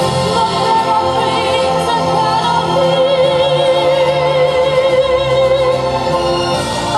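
Female solo voice singing a slow ballad live over instrumental accompaniment, holding a long note with vibrato from about three seconds in.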